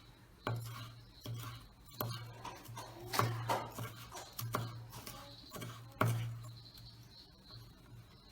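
Kitchen utensils and dishes knocking and clinking on a work surface: about seven irregular sharp strikes, each with a short dull thud, the loudest a little over three seconds in and at six seconds.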